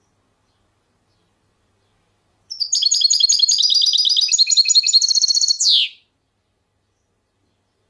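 Songbird singing one fast phrase of about three and a half seconds, beginning about two and a half seconds in. It is a rapid string of high, rippling notes that runs into a quick trill and ends on a single falling note.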